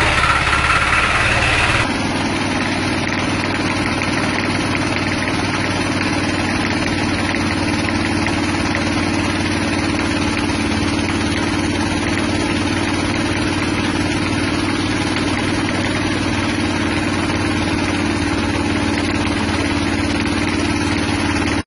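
Small petrol engine running steadily as it drives a horizontal feed-pellet mill. The sound changes abruptly about two seconds in, then runs on evenly.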